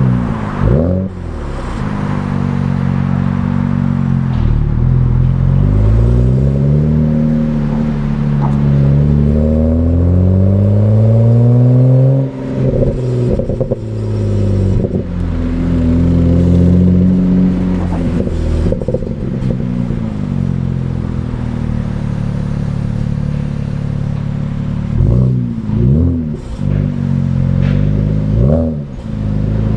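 BMW 335i's twin-turbo 3.0-litre straight-six (N54) through its stock exhaust, pulling hard with the pitch climbing through a gear, then dropping sharply as the throttle closes about twelve seconds in, with a few crackles. It then cruises fairly steadily, and near the end it dips and picks up twice in quick gear changes.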